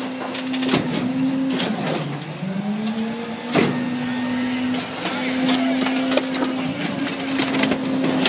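Rear-loader garbage truck's packer crushing a car body: a steady engine-and-hydraulic drone that sags in pitch under load for a second or so around two seconds in, while the car's metal body gives sharp cracks and snaps as it collapses, the loudest a little past three and a half seconds in.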